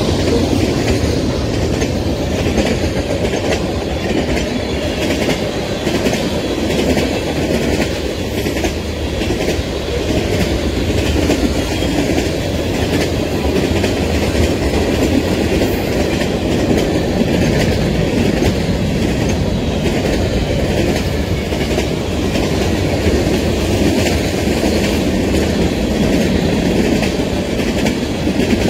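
BNSF mixed freight train passing at close range: tank cars, covered hoppers and autoracks rolling by, a steady rumble of steel wheels on rail with repeated clicks as the wheels pass.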